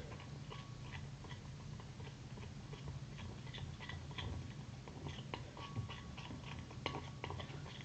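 Spoon stirring silicone with a drop of food colouring in a bowl: faint, irregular sticky clicks and smacks.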